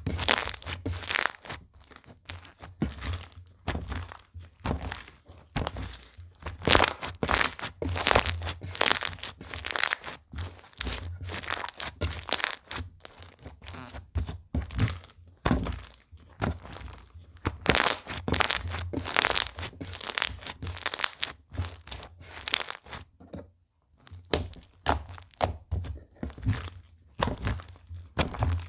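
Slime being squeezed, poked and stretched by hand, making a dense, irregular run of crackling, popping clicks with a brief pause about two thirds of the way in.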